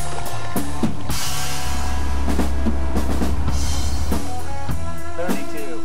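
Background music led by a drum kit, with a cymbal crash about a second in and a long low bass note through the middle.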